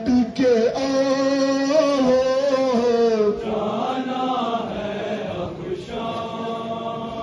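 Chanted singing of a nowha, a Shia lament, in a long wavering melodic line with held notes. It grows softer about halfway through.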